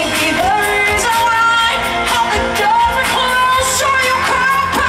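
Live pop music over a concert PA: a woman singing lead over an amplified band with a steady drum beat, heard from within the crowd.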